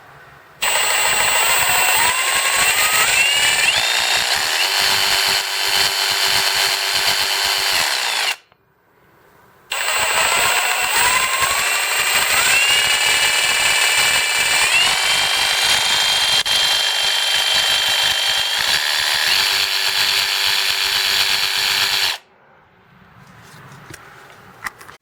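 Kobalt 24-Volt Max brushless jigsaw (model KJS 324B-03) running free with no load, its variable-speed trigger squeezed in stages so the motor whine climbs in steps to full speed and holds, then stops sharply when released. This happens twice: a run of about eight seconds, a short pause, then a longer run of about twelve seconds.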